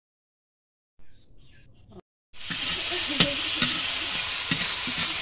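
Silence, then a bit over two seconds in, a loud sizzle of stir-frying starts suddenly in a hot pan of oil, with a utensil stirring and knocking against the pan now and then.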